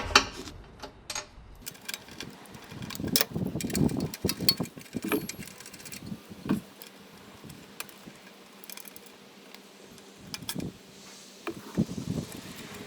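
Irregular metal clicks and clinks of a wrench and 7/16 socket working the bolts of a battery cover plate loose, with a few sharper knocks of metal on metal.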